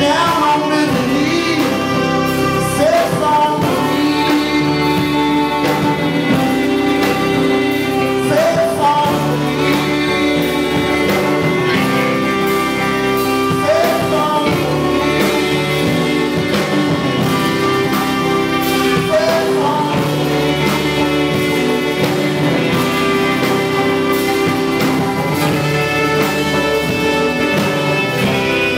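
Live band playing: saxophone melody lines over acoustic guitar, electric guitar, electric bass and drum kit.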